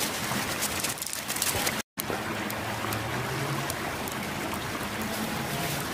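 Steady rush of a river's flowing water, with sharp clicks and rustles of sticks and dry leaves being handled over the first two seconds. The sound cuts out for an instant about two seconds in, then the water noise carries on with a few faint crackles.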